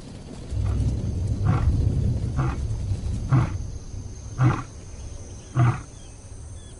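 Lion roaring: a low rumbling roar followed by a run of about five short, deep grunts, roughly one a second.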